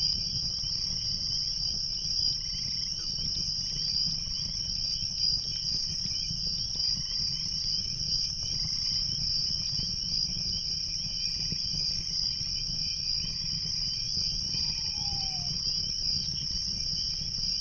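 Dense, steady chorus of crickets at night, with a separate sharp, very high chirp about every three seconds, over a low, steady rumble of a running creek.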